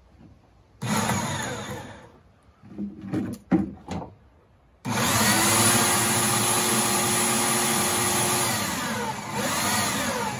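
Corded electric drill boring into a log: a short run that winds down, a few quick trigger bursts, then a long steady run from about five seconds in, dipping in pitch briefly near the end as the bit loads up.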